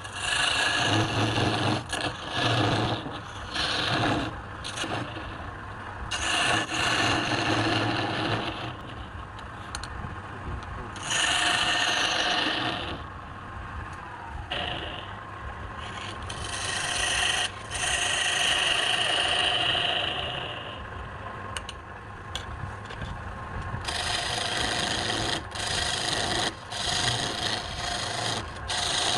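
Wood lathe with a turning tool scraping and cutting the spinning wood, in rough, rasping passes a second or few long with short breaks between them, over the lathe's low steady hum.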